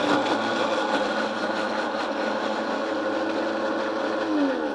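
Breville countertop blender running at a steady speed, chopping a whole shallot and garlic clove in a thin vinegar-and-water vinaigrette base. Near the end it is switched off and the motor's pitch falls as it spins down.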